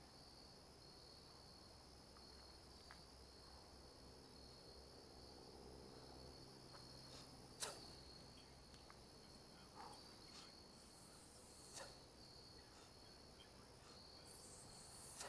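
Faint, steady chorus of crickets chirping, broken by a few short, sharp clicks, the loudest about halfway through.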